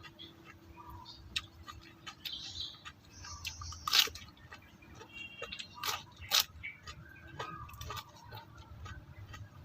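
Close-up chewing of raw bitter gourd: irregular crunches and wet mouth clicks, with a few louder crunching bites about four and six seconds in.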